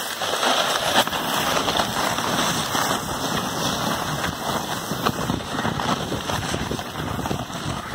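Steady loud hiss and scrape of a person glissading on their backside down a steep, deep-snow trail with snowshoes on, snow rushing under and around the body and clothing. A couple of short sharp knocks break through it.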